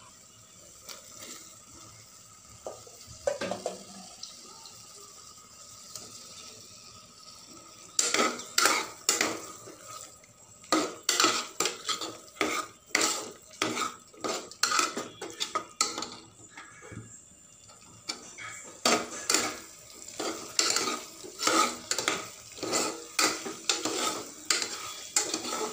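Steel ladle scraping and clinking against the inside of a pressure cooker pot while stirring raw mutton into thick masala. The clinks come about twice a second in two runs, starting about a third of the way in, with a short pause between the runs.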